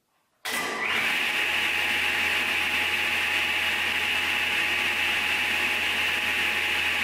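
10-inch Craftsman contractor table saw, belt-driven by a 1.5 horsepower enclosed motor, switched on about half a second in. The blade spins up with a short rising whine, then runs at steady speed with a continuous whine and hum.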